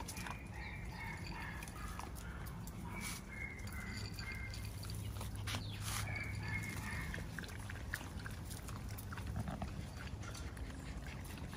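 Miniature Schnauzer puppies whining and yipping, short high calls scattered over the first seven seconds or so, fewer after that, over a steady low rumble.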